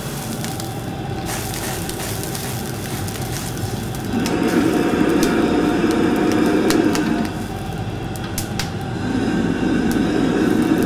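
Gas wok burner running under a steel wok, with a steady rushing noise that swells louder from about four seconds in and again near the end. Light metal clicks of a steel ladle against the wok come through.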